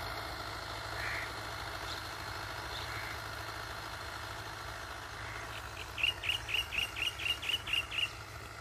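Distant Fiat 640 tractor's diesel engine running steadily under ploughing load. About six seconds in, a bird gives a quick run of about ten sharp calls, roughly five a second, lasting about two seconds.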